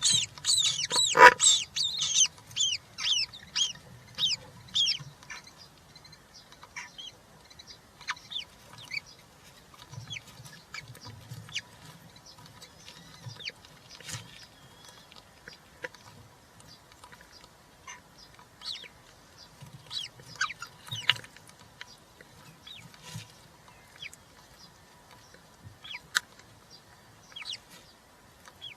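European roller chicks calling in the nest box: a quick run of short, loud calls in the first few seconds, then scattered fainter calls.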